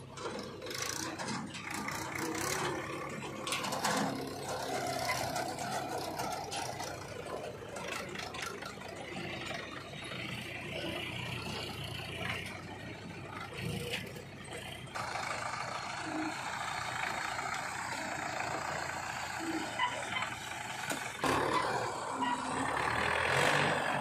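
Mahindra tractor's diesel engine running under load as it pulls its trolley through mud and sand, with a JCB 3DX backhoe loader working close by.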